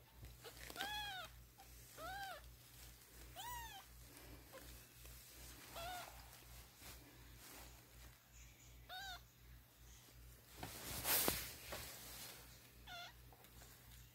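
Young kittens about two weeks old mewing: about six thin, high mews, each rising then falling in pitch, spaced a second or more apart. A brief louder burst of noise about eleven seconds in.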